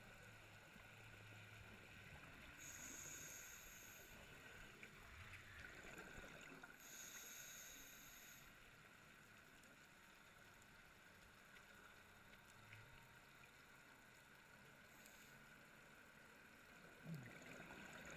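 Near silence underwater: a faint steady hiss, with two short high-pitched hisses about three and seven seconds in.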